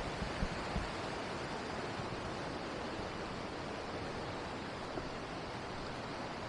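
Steady rushing of a fast-flowing stream, an even wash of water noise, with a few low thumps in the first second.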